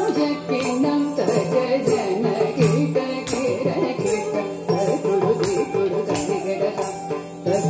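Carnatic dance music for Bharatanatyam: a wavering melodic line over a steady rhythm, with bright metallic jingling strokes keeping time about twice a second.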